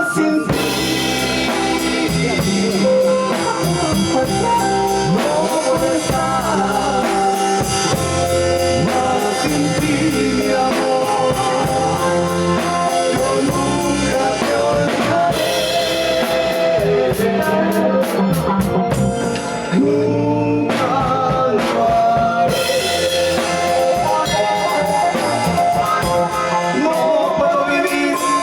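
Band music with drums, guitar and a melodic lead line, playing the song throughout.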